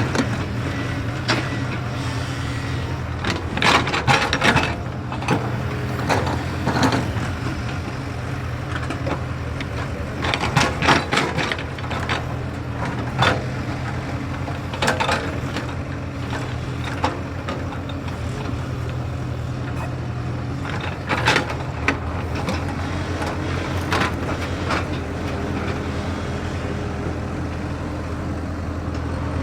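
JCB excavator's diesel engine running steadily under load, with bursts of clanking and scraping from the bucket and arm at work, loudest around four seconds in, near eleven seconds, and again at about thirteen, fifteen and twenty-one seconds.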